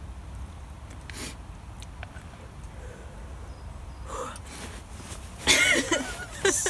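A woman laughing out loud in a few wavering peals, starting about five and a half seconds in; a short breathy sound comes about a second in.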